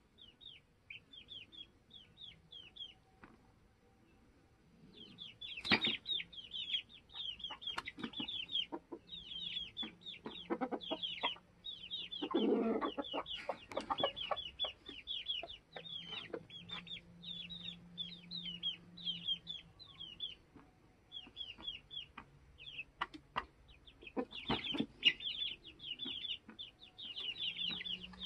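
Young chickens peeping in quick runs of short, high, falling chirps, with lower clucking from the older birds. There is a louder, lower call about halfway through and a few sharp taps.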